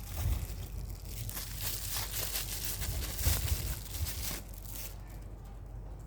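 Packaging being torn open and crinkled by hand: a dense rustling that builds about a second in and stops shortly before the end, with a few low handling bumps.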